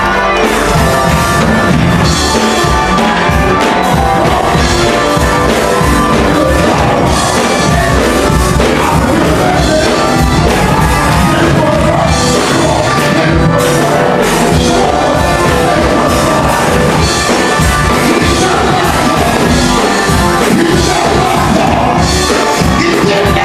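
Live gospel music played loudly by a church band, guitar and drums with a steady beat, with singing over it.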